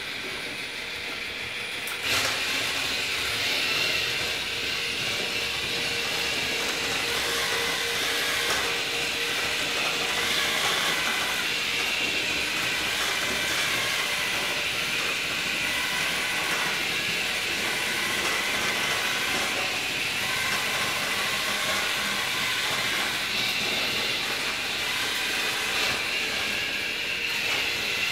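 Traxster II tracked robot's electric drive motors and rubber tracks running on a hard floor, a steady whirring hiss. It grows louder about two seconds in and then holds steady.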